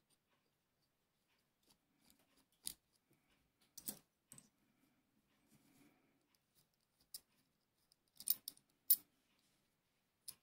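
Scattered sharp metal clicks and clinks of small steel parts being handled and worked loose as a pistol-sized Circassian miquelet flintlock lock is taken apart. About seven light clicks, the two loudest close together near the end.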